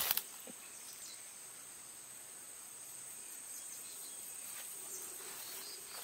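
Faint, steady high-pitched insect chorus from the surrounding undergrowth, with a few faint rustles or steps through the brush.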